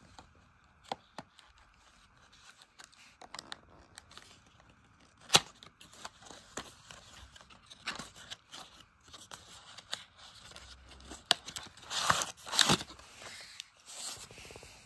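Cardboard box and plastic packaging handled by hand: the box flap is opened with light taps, scrapes and sharp clicks, one loud click about five seconds in. Near the end a louder crinkling rustle comes as the sealed plastic-and-paper pouch is drawn out of the box.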